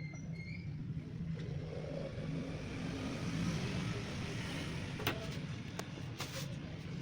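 A steady low mechanical rumble with a hiss that swells in the middle, and a few sharp clicks in the last two seconds.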